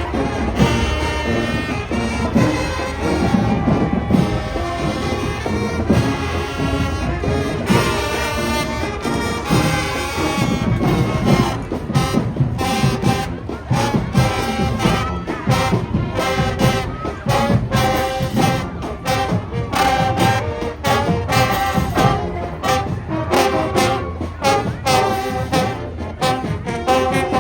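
High school marching band playing, with brass carrying the tune over drums; sharp, regular drum hits stand out from about halfway through.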